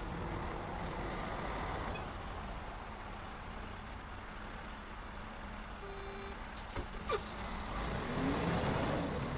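A heavy flatbed work truck's engine running as the truck manoeuvres slowly. About six seconds in there is a brief tone, then two sharp clanks, and near the end the engine gets louder with a rising whine.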